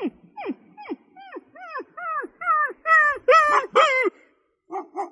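A dog barking over and over, about two barks a second, each bark falling in pitch. The barks draw out into longer, louder, howl-like calls around the middle, then two short barks come near the end.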